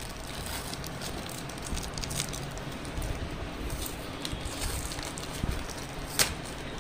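Clear plastic wrapping crinkling and a cardboard parcel being handled as it is unwrapped, with irregular small crackles and one sharp snap about six seconds in.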